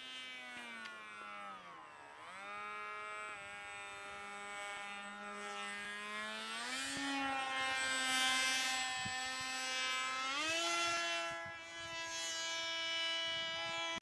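Radio-controlled model airplane's motor buzzing in flight, its pitch dipping about two seconds in, then rising in two steps as it speeds up again. The sound cuts off suddenly at the end.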